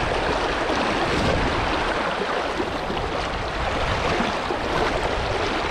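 Fast-flowing river current rushing steadily, an even wash of water noise.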